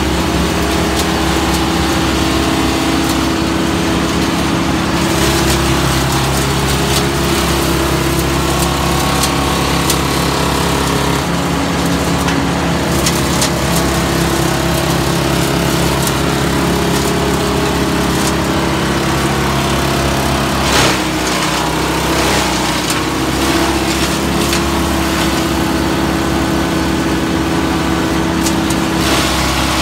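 Vermeer brush chipper's engine running steadily at working speed as spruce branches are fed into it, with the crackle of branches being chipped. About two-thirds of the way through there is a sharp crack and the engine note briefly drops under the load.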